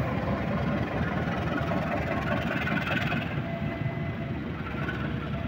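Diesel locomotive engine running with a heavy rumble as the locomotive rolls past close by.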